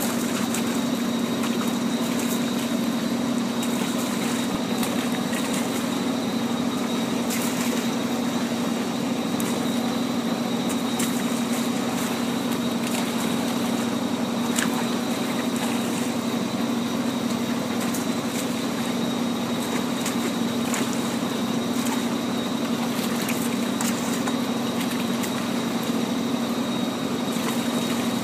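A motor hums steadily, with irregular splashes and slaps of water as live tilapia thrash and are dropped into a tub of water.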